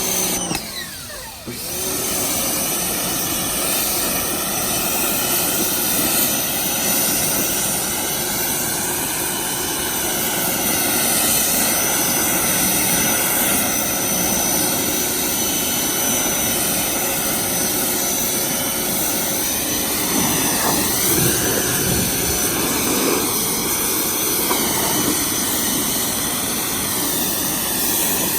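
Electric pressure washer starting up, its motor spinning up over the first second or two and then running steadily under the hiss of its water jet spraying a car. The spray sound wavers over the last several seconds.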